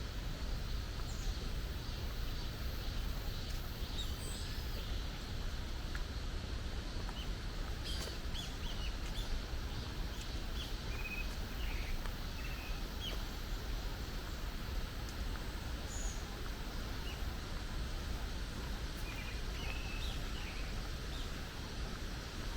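Small birds chirping and twittering in short, scattered calls over a steady low background noise.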